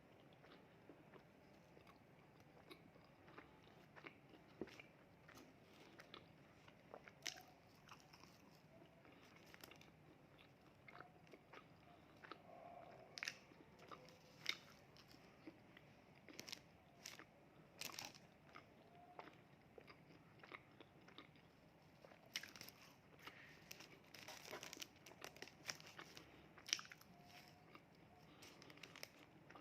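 A person eating fast food: biting and chewing, quiet overall, with many sharp crunches that come thicker in the second half.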